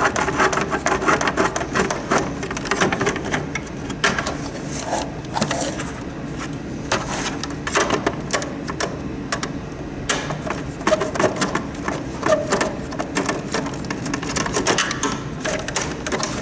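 Irregular clicks, taps and rattles of plastic and metal humidifier parts being handled and taken apart by hand.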